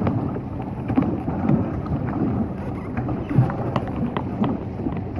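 Water splashing and lapping around a plastic pedal boat moving across a lake, with small splashes coming thick and irregular, over wind rumbling on the microphone.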